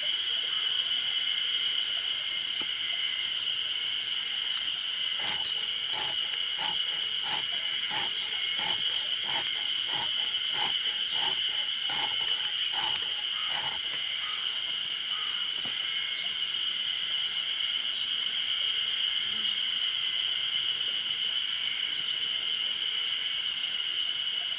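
Insects trilling steadily at a high pitch throughout. From about five seconds in to about fourteen, a run of short knife scrapes, one or two a second, sounds over it.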